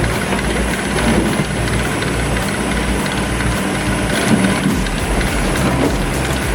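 Diesel engine of a Sennebogen 735 E-Series log handler running steadily as the machine works, with an even mechanical clatter over it.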